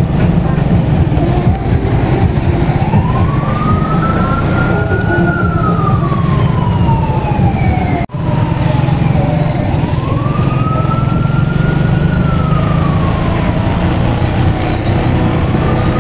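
Keeway K-Light 202 motorcycle engine running steadily at slow speed, with an emergency siren wailing over it, rising and falling slowly in pitch about every seven seconds. The sound cuts out for an instant about halfway through.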